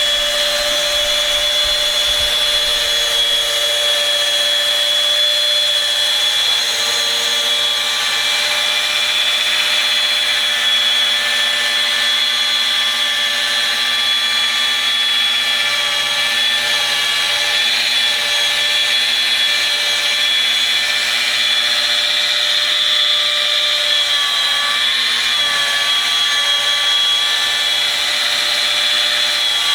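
Electric rotary polisher running steadily with a high whine while buffing gel coat with heavy-cut compound; its pitch sags briefly near the end as the pad is loaded against the hull.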